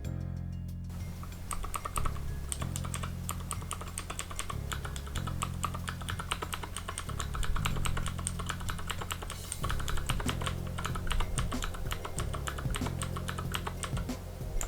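Fast typing on a mechanical keyboard: a dense run of sharp key clicks that starts about a second in, over low background music.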